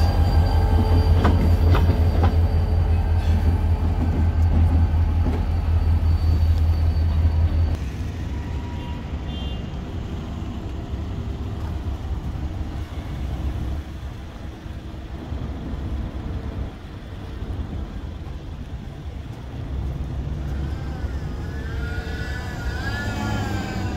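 EMD SD40-2W diesel locomotives, with 16-cylinder two-stroke engines, running close by as they pass, a heavy low rumble. About eight seconds in the sound drops to a quieter, more distant locomotive rumble. A wavering high squeal comes in near the end.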